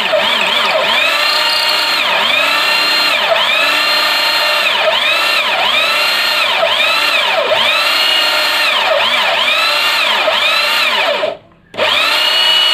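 INGCO ID6808 680-watt corded drill driving a hole saw through a wooden board under load. Its motor whine sags and recovers again and again, about once a second, as the cutter bites into the wood. The sound cuts out briefly near the end.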